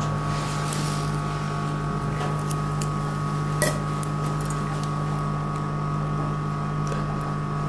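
Steady machine hum of operating-room equipment, with a few faint clicks of metal surgical instruments as a nostril is sutured.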